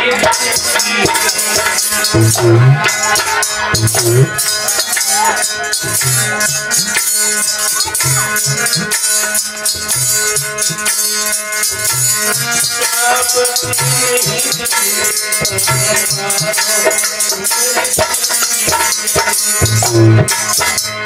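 Live devotional song: a rattle shaken in a fast steady beat over repeated low drum strokes and sustained held notes, with a man's singing voice at times.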